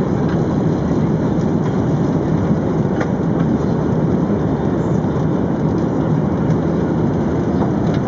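Steady in-flight cabin noise of an Airbus A380: a low, even rush of airflow and engine sound with no change in level.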